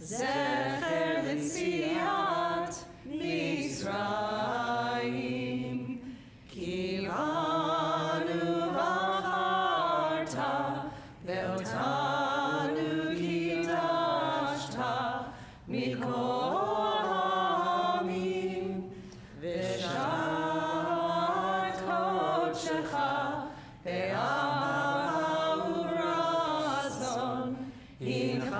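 A congregation singing a liturgical melody together, in phrases of about four seconds with short breaks between them.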